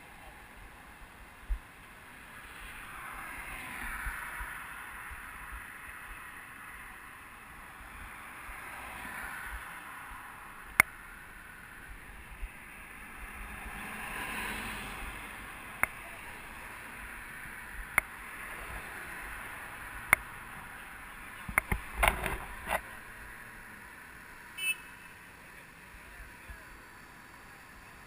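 Road traffic passing through a city intersection, cars swelling and fading as they drive by, with scattered sharp clicks and knocks and a quick cluster of them a little past two-thirds of the way through.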